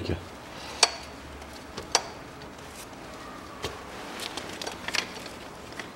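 Clicks and light knocks of idler pulleys and their bolts being handled and started by hand on the engine front: two sharp clicks about one and two seconds in, then a scatter of smaller ticks.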